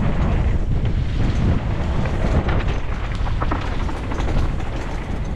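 Heavy wind buffeting the microphone: a loud, steady rumble.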